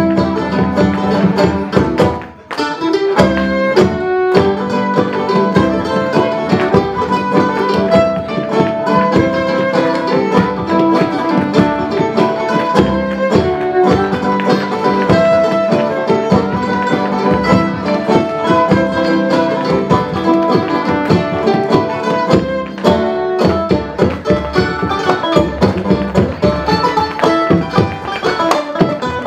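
Live folk band playing a tune, with a short break about two seconds in.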